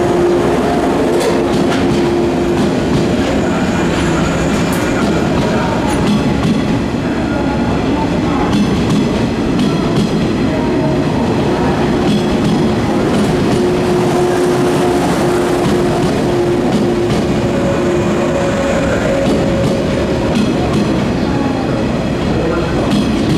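JR 115 series electric multiple unit pulling out and running, with a steady rumble and hum and wheels clicking over rail joints.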